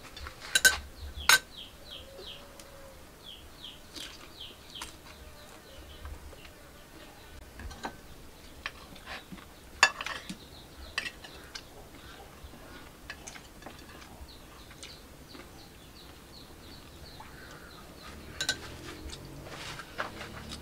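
Metal spoon clinking against plates and bowls a few times, sharpest about a second in and again around the middle. In the background a bird chirps in quick repeated runs.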